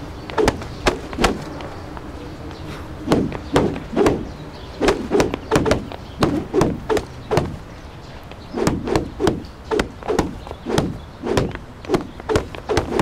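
A wooden stick whacking a hanging cloth sheet over and over: sharp slaps in quick runs of three or four, with short pauses between runs.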